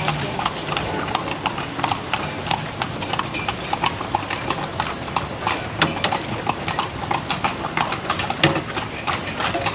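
Hooves of two carriage horses clip-clopping on a paved street as they pull a horse-drawn carriage, a brisk, uneven run of sharp hoof strikes.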